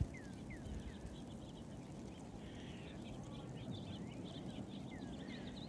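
Faint, repeated short chirps, each falling quickly in pitch, from small birds calling, over a low steady outdoor rumble.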